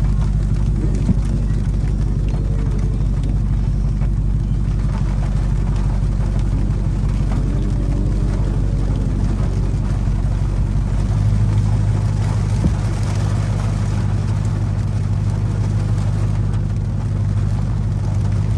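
Dodge Charger Hellcat's supercharged V8 running at a steady idle, a low even drone whose note grows a little stronger about eleven seconds in.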